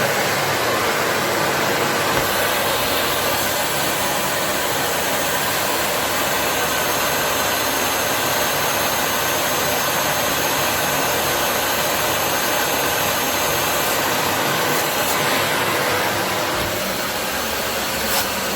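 Kärcher 5.100 washing vacuum cleaner running steadily, its motor and suction drawing sprayed water and detergent back out of fabric upholstery.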